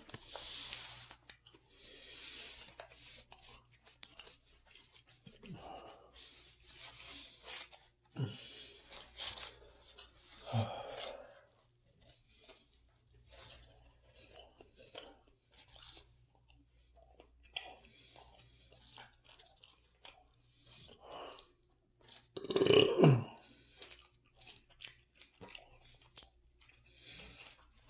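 Close-up chewing and crunching of food, with a few low burps; the loudest burp, lasting about a second, comes near the end.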